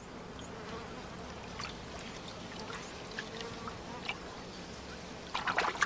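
Faint swamp ambience: water trickling and insects buzzing, with scattered small ticks and a brief louder sound near the end.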